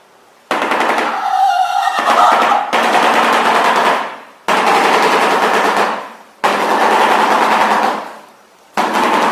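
Shoebill clattering its bill: four bouts of fast rattling clatter, the first about three and a half seconds long and the others a couple of seconds each, with short pauses between them.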